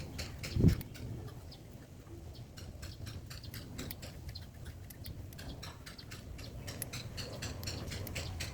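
Rapid, irregular small clicks and ticks of pet African lovebirds pecking with their beaks. A single dull thump comes a little under a second in.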